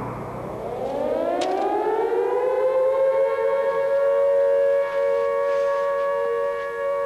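Air-raid siren winding up: its wail rises in pitch over about two seconds, then holds a steady note.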